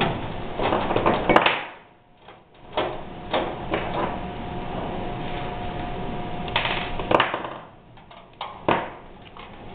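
Handling noise of wires and small parts being moved about inside a sheet-metal fluorescent light fixture: a busy rustle at the start, then a string of separate clicks and knocks.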